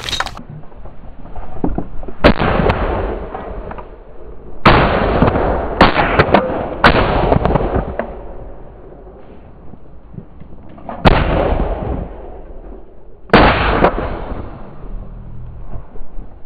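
A volley of shotgun blasts from several hunters shooting at geese overhead, about seven shots spread over the first fourteen seconds, with a quick cluster in the middle. Each shot trails off in a rolling echo over a second or so.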